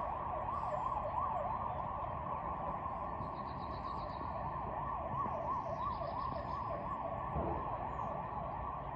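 Emergency vehicle siren sweeping quickly up and down in pitch, over steady background noise.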